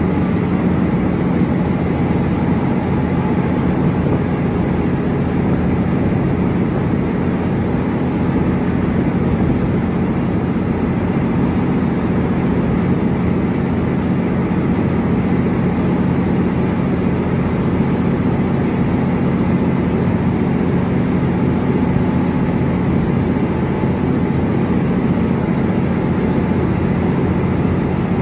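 Car ferry's engines running steadily under way, a constant low drone that holds one pitch throughout, mixed with the rush of the propeller wash churning behind the stern.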